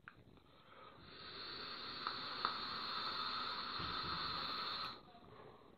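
A long drag on a Merlin rebuildable tank atomizer: a steady hiss of air drawn through the atomizer over its firing coils, with a couple of faint crackles. It starts about a second in and cuts off sharply about four seconds later.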